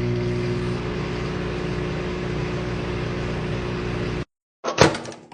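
Microwave oven running with a steady electrical hum that cuts off suddenly about four seconds in, followed near the end by a brief sharp clatter.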